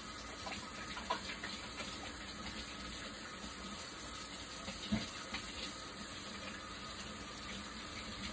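Kitchen faucet running steadily while hands are washed under it, with a couple of light knocks about a second in and midway through.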